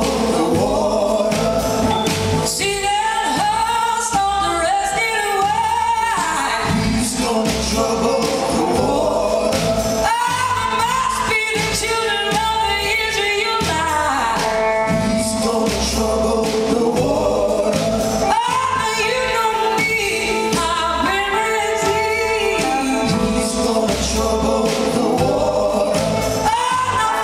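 A live band playing a gospel spiritual, with a woman singing lead over electric guitars and drums. Other voices join in the singing.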